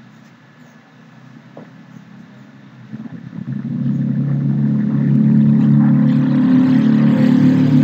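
An engine running, growing louder about three seconds in and then holding steady.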